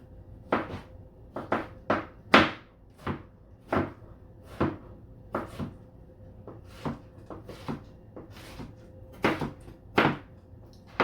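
Knife chopping on a plastic (high-density polypropylene) cutting board: about fifteen sharp knocks at an uneven pace, roughly one or two a second, some in quick pairs.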